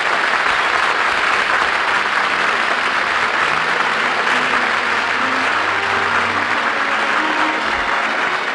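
Studio audience applauding steadily, with orchestral music starting to come in faintly underneath about halfway through.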